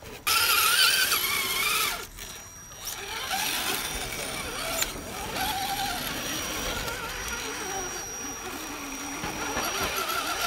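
Electric motor and gear whine of a radio-controlled scale crawler truck, wavering in pitch with the throttle as it crawls over roots and rocks. It is loudest in the first two seconds, then quieter and steadier.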